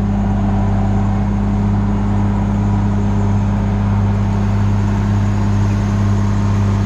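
Diesel engine of a large farm machine running at a steady speed, a constant low drone.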